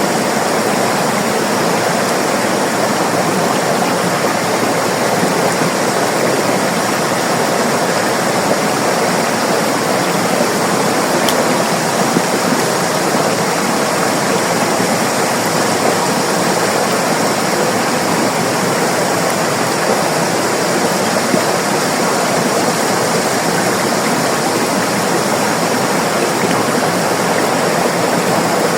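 River water flowing over rocks, a steady rushing and babbling with no change in level.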